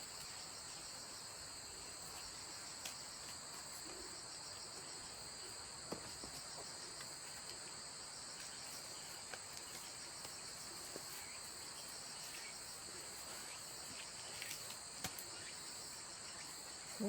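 Steady chorus of crickets trilling without a break, at two high pitches, with a few faint clicks and rustles.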